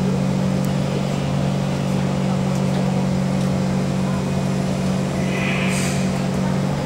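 Cabin noise of a Kawasaki C151 MRT train running at steady speed in a tunnel: a constant low rumble and hum from the wheels, rails and traction equipment. There is a brief hiss about five and a half seconds in.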